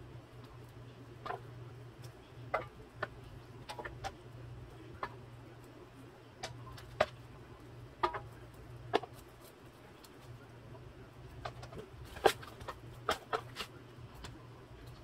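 Irregular light taps and crinkles from a disposable aluminum foil pan as onion rings and pepper strips are pulled apart and dropped onto the fish, over a steady low hum.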